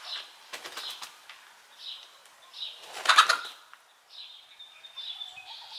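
A hen flapping its wings hard while held by its legs, in two bursts of rapid wingbeats: a short one about half a second in and a louder, longer one about three seconds in. Short high bird chirps repeat in the background.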